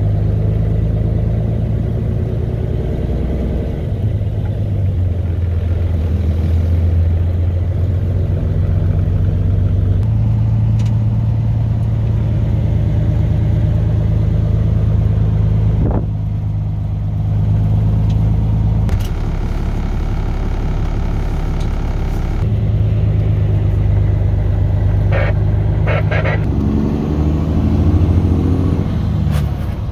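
2011 Peterbilt semi truck's diesel engine heard from inside the cab, pulling away. Its note changes in steps several times as it works through the gears. Near the end there are a few sharp clicks, then rattling and jolting as the truck crosses railroad tracks.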